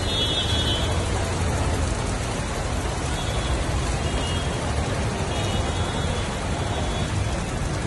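Steady noise of a flooded city street: a continuous hiss of rain and water under a low rumble of traffic, with faint high tones coming and going.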